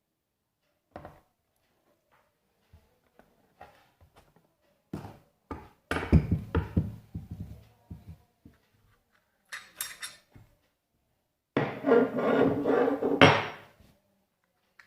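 Stanley chrome-vanadium steel combination spanners clinking and knocking as they are handled: scattered single knocks, a quick run of clinks about six seconds in, and a longer clattering spell near the end.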